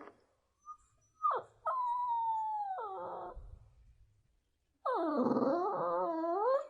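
Shih Tzu puppy whining: a couple of short yelping cries, then a long whine that slowly falls in pitch and breaks up at its end. After a pause comes another long whine that wavers down and back up in pitch.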